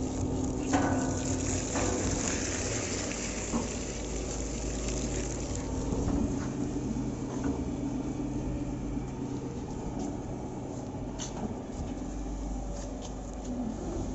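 Stainless steel organic waste shredder-dewatering machine running with a steady motor hum; its twin-shaft shredder crunches celery stalks a couple of times in the first seconds, and the screw press churns the shredded vegetables as it squeezes out the juice.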